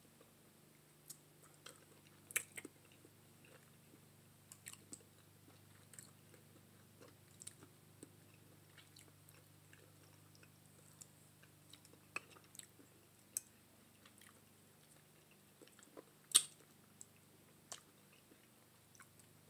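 Faint mouth sounds of someone eating curried neck bones: chewing with scattered small clicks and smacks, the loudest about two and sixteen seconds in. A faint steady low hum lies underneath.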